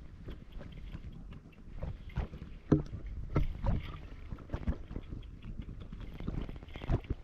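Shallow water splashing and sloshing in irregular strokes, as someone works in a flooded rice field, with a few sharper splashes or knocks.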